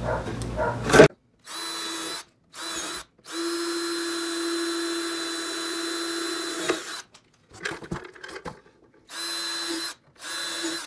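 Cordless drill pre-drilling pilot holes in a rough-lumber board, a steady motor whine in a couple of short bursts, then one run of about three seconds, then a few more short bursts. There is some knocking and rattling in between.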